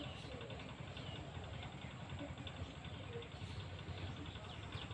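Outdoor ambience: a steady low rumble with faint, scattered short high chirps of small birds.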